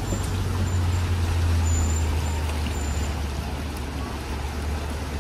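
Open-sided safari ride truck's engine running as it drives along, a steady low drone that eases off a little over the last seconds.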